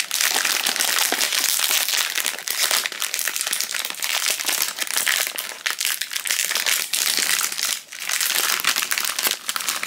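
Foil blind-box pouch crinkling and crackling steadily as it is handled and pulled open by hand, with a short pause about eight seconds in.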